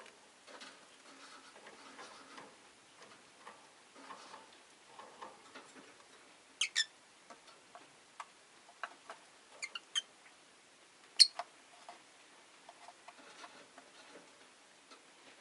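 Rosy-faced lovebirds chattering softly, with scattered short, sharp chirps and clicks. The loudest comes about eleven seconds in.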